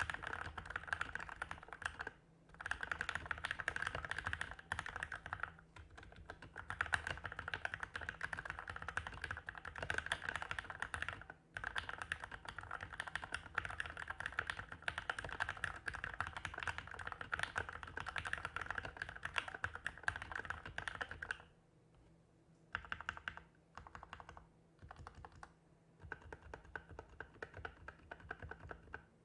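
Typing on a Keychron K8 mechanical keyboard with Tealios V2 linear switches, lubed with Krytox 205g0 and fitted with TX switch films. The keystrokes run in fast, dense strings with brief pauses, then break into shorter bursts with gaps after about twenty seconds.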